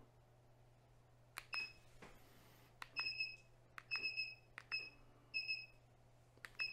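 Button clicks on the controls of an electric rotating photo turntable, each followed by a short high electronic beep: about six click-and-beep pairs at uneven intervals, over a faint steady low hum.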